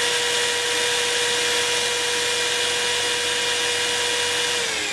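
Electric drill running at a steady speed with a plastic Sparta drill-bit sharpener fitted to it, a steady whine. Near the end the pitch starts to fall as the motor winds down.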